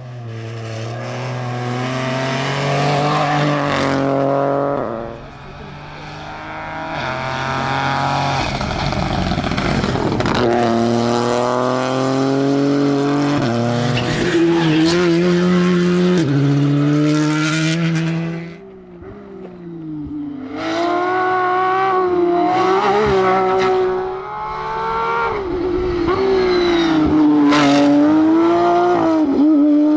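Rally cars driven hard, engines revving up and falling back through gear changes as they pass, in several runs one after another; the sound drops briefly about five seconds in and twice in the last third.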